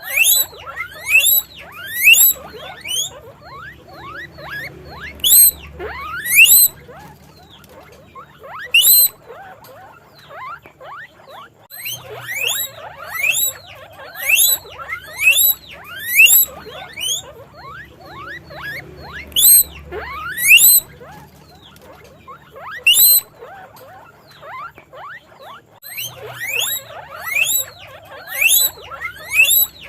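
Guinea pig wheeking: short, sharp squeals that rise in pitch, repeated in quick runs of several calls with brief pauses between the runs.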